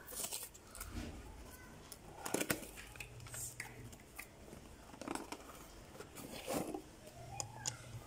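Cardboard toy box being handled: scattered scrapes, taps and rustles of hands on the carton, loudest about two and a half seconds in.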